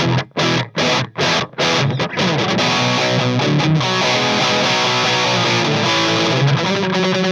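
Electric guitar played through a Joyo Time Magic delay and Joyo Future Chorus pedal into an Orange Micro Terror amp. It opens with short, choppy chords about two or three a second. Around two seconds in it moves to sustained notes that ring and blur into one another.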